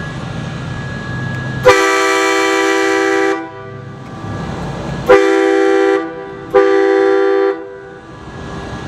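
Truck-mounted air train horn, several trumpets sounding one chord, blown three times by remote: a blast of about a second and a half, then two shorter ones close together. Its air tank is running a little low.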